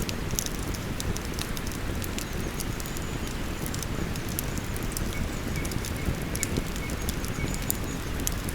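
Wood campfire crackling, with frequent sharp pops and snaps, over the steady rush of a flowing river.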